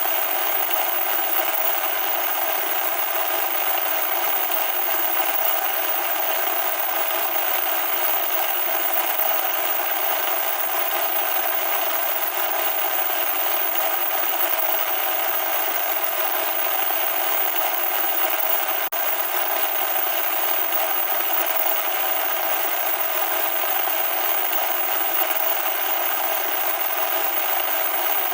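Loud electronic static: a steady, harsh hiss with no bass, unchanging in level.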